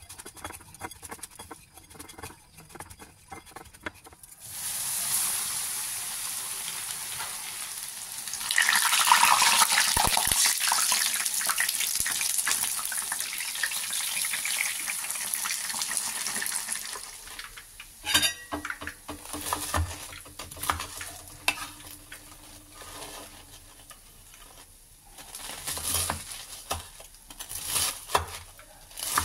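Breaded chicken katsu cutlet frying in a pan of hot oil: a steady sizzle that jumps much louder about a third of the way in and dies away a little after halfway. After that, a knife cutting the fried cutlet on a wooden board gives a run of short cutting sounds.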